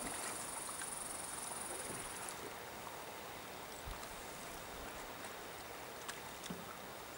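Quiet lakeshore ambience: a soft, even hiss of light wind and water, with a few faint knocks from the paddlers. A thin, very high trill sounds for the first two seconds, then stops.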